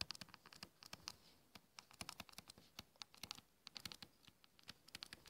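Faint, quick taps and scratches of a stylus writing on a tablet touchscreen, coming in small irregular clusters.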